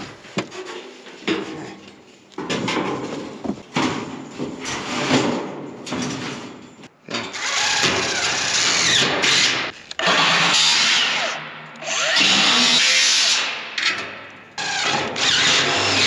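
DeWalt cordless drill running in repeated bursts of a few seconds as it bores into a metal drum. The longest and loudest runs come in the second half.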